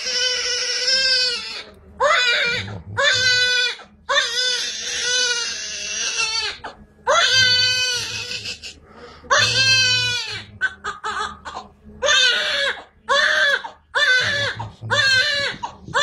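Newborn baby boy crying hard in pain during his circumcision: loud, high wails broken by gasps for breath. In the last few seconds the cries grow shorter and come about once a second.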